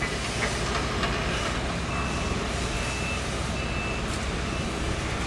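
Backup alarm of construction equipment beeping three times, about a second apart, over a steady low rumble of the site.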